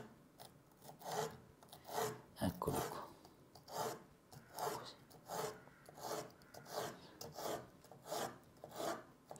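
A kitchen knife slicing a bell pepper into sticks on a cutting board: a steady series of short, soft cuts, roughly one every half second to a second.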